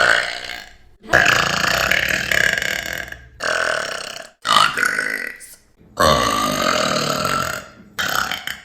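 A woman burping loudly, about six burps in a row with short breaks between them, the longest lasting about two seconds.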